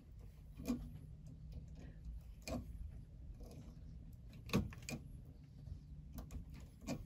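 Pliers twisting copper hot wires and a pigtail extension together in a metal outlet box: scattered small clicks and scrapes of metal on metal, the loudest about four and a half seconds in.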